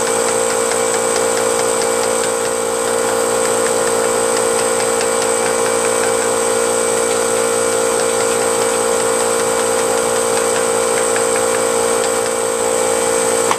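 Brute Briggs & Stratton 10-gallon air compressor running steadily, holding a steady hum as it pumps the tank up to about 130 psi without cutting out; the owner suspects the pressure switch or check valve. Light taps of a screwdriver handle on the pressure gauge sound faintly under it.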